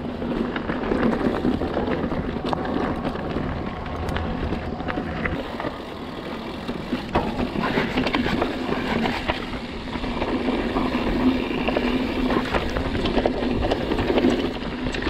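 Mountain bike riding down rocky dirt singletrack: tyres rolling over dirt and stones with a continuous rumble, and the bike rattling with frequent small clicks and knocks.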